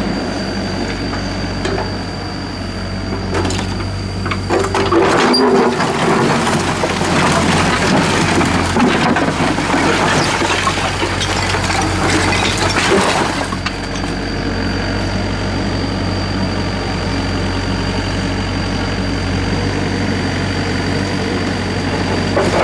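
Doosan DX55W wheeled excavator's diesel engine running steadily, with its bucket crunching and scraping through broken brick and concrete rubble from about five seconds in until about thirteen seconds. After that the engine and hydraulics run on as the loaded bucket swings up over the dump truck's bed.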